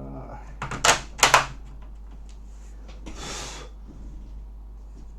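Two sharp plastic clicks about a second in, with smaller ticks just before them, then a short scraping rustle around three seconds in, as a laptop's plastic casing is pried apart with pry tools.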